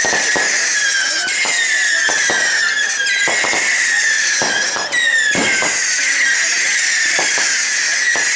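Fireworks display: whistling fireworks go off one after another, about one a second, each whistle falling in pitch, over a steady run of sharp cracks and bangs.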